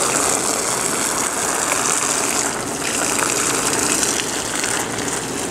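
Garden hose spraying water in a steady hiss, running loose because its end won't fit the slip-n-slide's hose connector.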